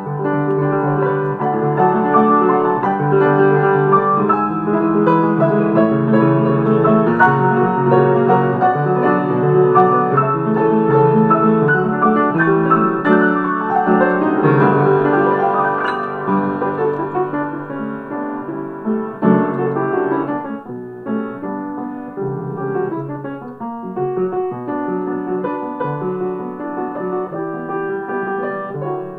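Piano music: a busy passage of many quick notes, softer from about two-thirds of the way through.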